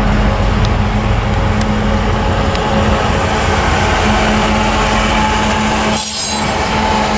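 Two diesel-electric freight locomotives, a GE AC4400CW followed by an EMD SD70MAC, running loud as they pass close by under power. Their engines make a steady low hum, with a short dip about six seconds in.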